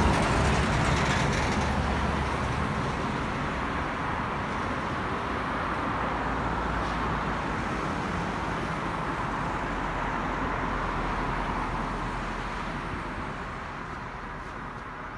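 Road vehicle driving up the hill road past the microphone: engine and tyre noise, loudest at first, then fading gradually over the last few seconds as it moves away.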